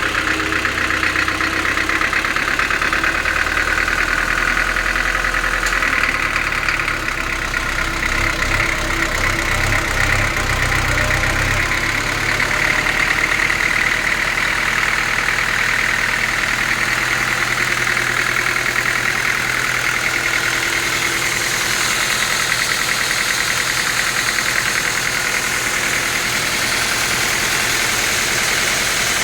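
Sawmill saw running steadily with its drive engine, cutting teak. The low hum shifts about twelve seconds in.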